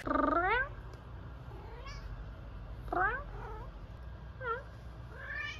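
A house cat meowing about five times, short calls that mostly rise in pitch; the first is the loudest.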